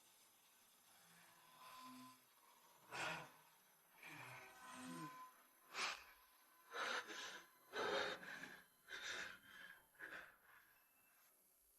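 A person breathing hard, a string of faint gasps and sighs, about eight or nine breaths coming closer together in the second half.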